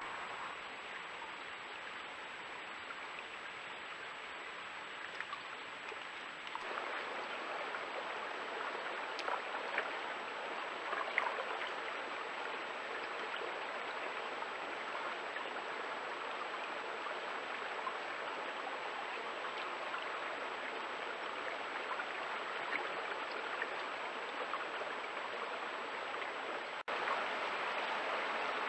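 Small stream running over rocks, a steady rushing heard through a trail camera's microphone, with a faint high steady whine behind it. It gets louder at a cut about six and a half seconds in, and again after a brief dropout near the end.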